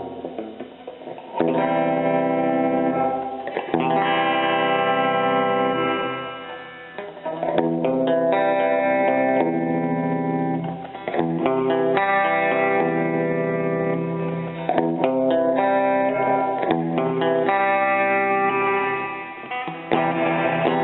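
Electric guitar played through a Roland Jazz Chorus combo amplifier: chords struck and left to ring for a second or two each, with a few short pauses between phrases.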